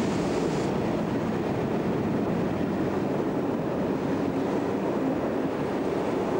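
Diesel-hauled freight train passing close by: the locomotives go past in the first second, then a steady rumble of freight wagons rolling over the track.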